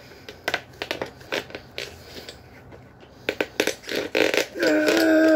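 Rubber bicycle tyre being forced onto its rim by hand: scattered creaks, slaps and clicks of rubber on the rim. Near the end comes a louder pitched sound lasting about a second that drops in pitch as it stops.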